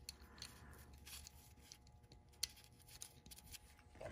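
Near silence with faint small metallic clicks as a bolt is turned by hand into a newly installed steel thread insert, with one sharper click about two and a half seconds in.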